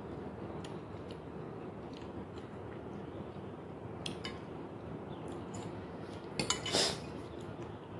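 Metal fork clinking and scraping against a stainless steel pot, a couple of sharp clicks about halfway through and a louder clatter a little before the end, with scattered small clicks of eating between.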